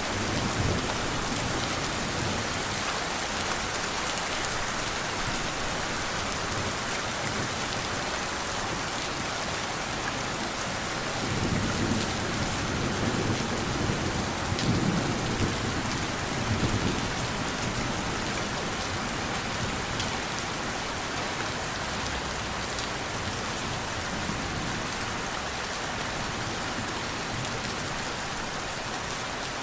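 Steady rain hissing, with a low roll of thunder rumbling for several seconds about midway.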